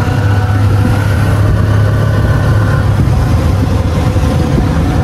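Auto-rickshaw engine running while the rickshaw is driven, heard from inside its open passenger cabin as a loud, steady low drone. A fainter higher whine over it fades out about three seconds in.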